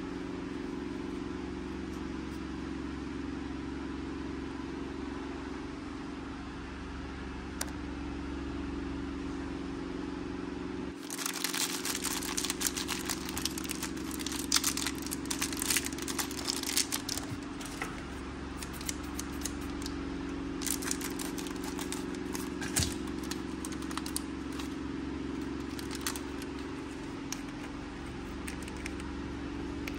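Foil wrappers on small toy surprise packets crinkling as they are unwrapped by hand. A dense run of crinkling starts about a third of the way in and thins to scattered crinkles later, over a steady low hum.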